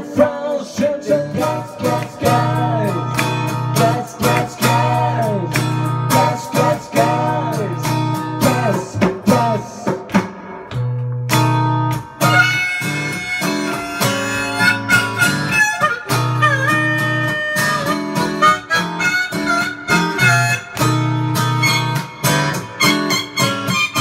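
Harmonica played over a strummed acoustic guitar, the harmonica notes bending up and down.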